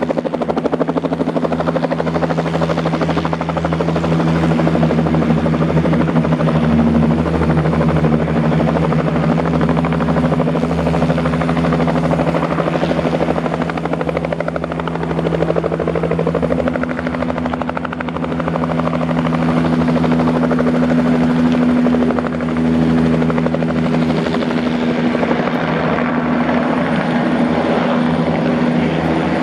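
Bell 505 JetRanger X helicopter running at steady power: a constant turbine and rotor drone with a steady pitch that shifts slightly now and then.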